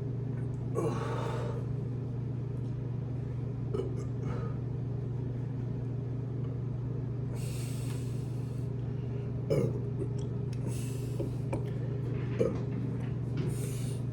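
A person breathing audibly, with a few short burps, over a steady low hum.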